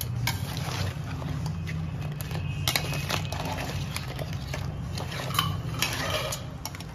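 Metal spoon scraping and clinking irregularly against a stainless steel pan while stirring crab pieces in thick roast masala, over a steady low hum.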